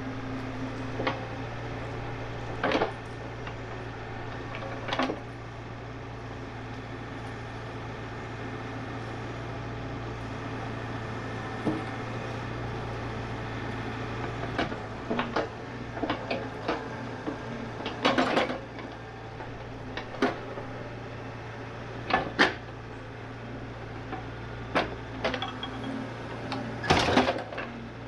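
Excavator engine running at a steady drone, with scattered knocks and clunks from the machine at work; the clunks come thickest in the second half.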